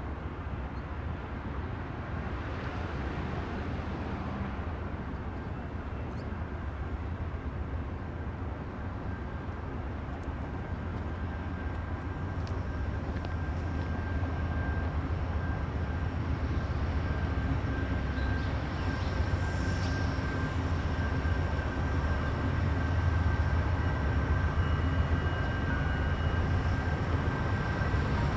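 Train rumbling steadily and growing louder as it nears, with faint thin high whines over the low rumble.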